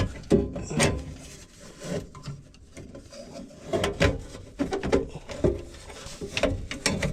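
Furnace parts being handled and fitted into place: irregular knocks, clunks and scraping as the inducer motor and flue pipe are worked into position, with a cluster of sharp knocks about four seconds in.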